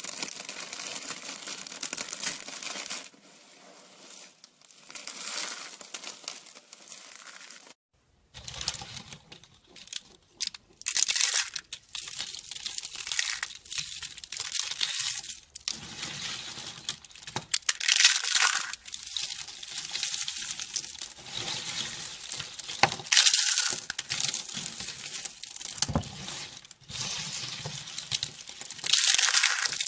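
Dry bar soap being cut, crisp crackling and crunching in repeated strokes, with a short silent gap about eight seconds in.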